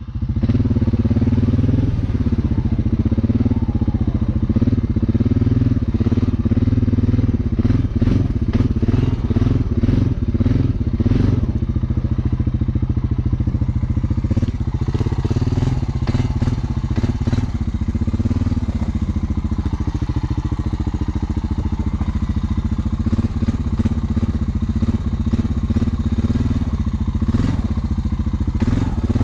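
Honda 350 ES ATV's single-cylinder engine running under way, its pitch rising and falling a little. A few clicks and knocks come through around eight to eleven seconds in and again near the end.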